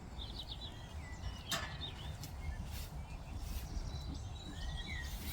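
Small birds chirping and twittering in short repeated calls over a steady low rumble, with a few brief clicks.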